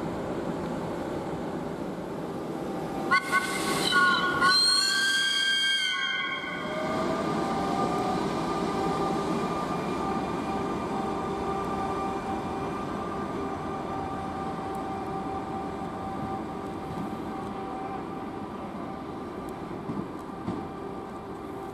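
Trains running through a railway station with a steady low drone. About three seconds in, a two-tone train horn sounds two blasts, the second longer. After the horn a whine rises and then holds steady as a train moves.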